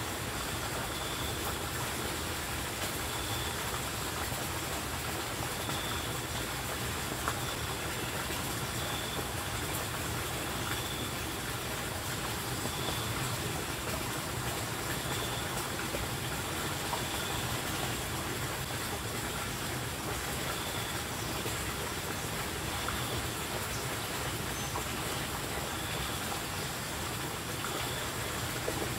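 Steady rush of running water, with a faint high chirp repeating about every two seconds.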